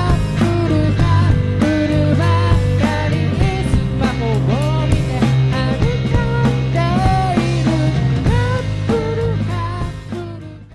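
Three-piece pop-rock band playing live: a male voice sings over electric guitar, electric bass and a drum kit. The music fades out near the end.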